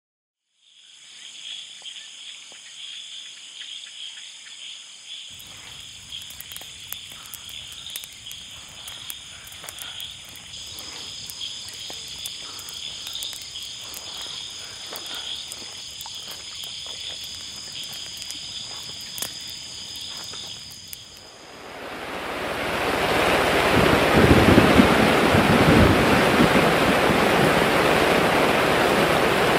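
Forest ambience: a steady high-pitched insect chorus with scattered small clicks. About 22 seconds in, it gives way to loud rushing water.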